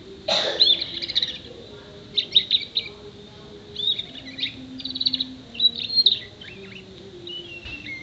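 Six-month-old canary singing in quick bursts of chirps and trills, about five phrases with short pauses between them and fainter notes near the end. Its song is filled with copied calls of local birds such as sparrows and prinias.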